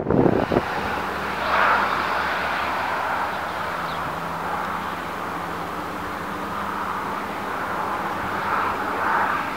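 Canadair water bombers' propeller engines droning steadily as they fly past, swelling a little now and then. Gusty wind on the microphone in the first half-second.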